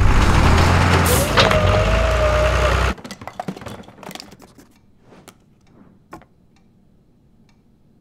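Heavy-machinery sound effect, a deep engine rumble under loud hissing noise with a wavering tone in the middle, which cuts off sharply about three seconds in. It is followed by faint, scattered clicks and taps.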